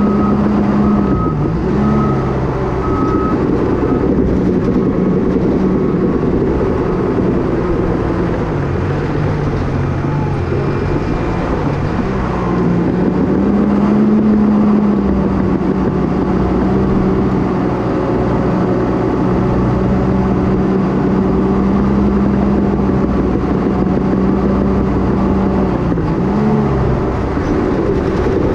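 Cat D5K dozer's diesel engine running steadily while the blade pushes dirt and rock, its drone dipping briefly in pitch about a second and a half in, around nine seconds, and near the end. A reversing alarm beeps a few times in the first three seconds, then stops.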